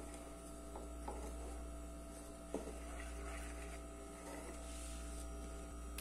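A wooden spoon stirring dry flour in a ceramic bowl, with faint scraping and a few light taps against the bowl, the clearest about two and a half seconds in. A steady electrical hum runs underneath.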